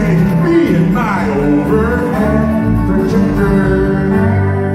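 Live band performing a song: acoustic guitar with voices singing, including long sliding sung notes.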